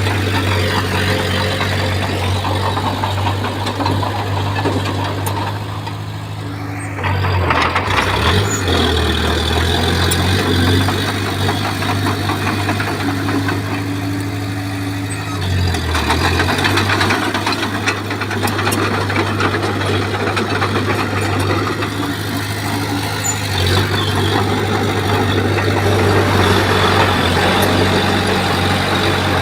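Komatsu bulldozer's diesel engine running steadily, its note dipping and shifting about a quarter of the way in and again about halfway, as the machine works, over a dense mechanical rattle.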